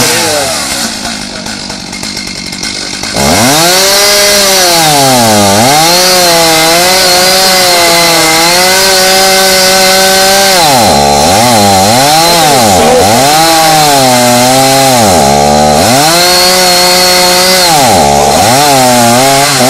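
Gas chainsaw opening up to full throttle about three seconds in and cutting into a tree trunk. Its engine pitch sags several times as it bogs in the wood and climbs back each time. The chain is dull.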